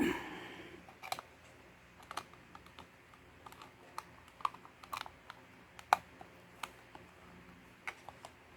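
Irregular clicks and taps on a computer keyboard's keys, about a dozen spread unevenly, the loudest about six seconds in. A short burst at the very start fades away within a second.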